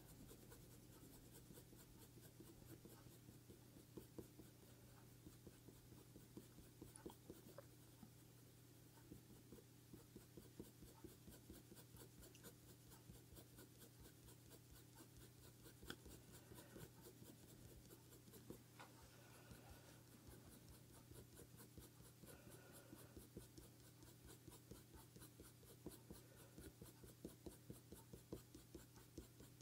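Faint, quick scratching of a Faber-Castell Polychromos coloured pencil stroking back and forth across hot-press paper. The pencil is held with light pressure to lay down an even underlayer of colour.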